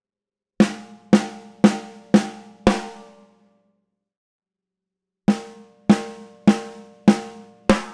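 A snare drum struck with a wooden stick in single hits, some of them rim shots: five hits about half a second apart, a pause of about two seconds, then five more. Each hit rings on a clear pitched tone that dies away within about a second.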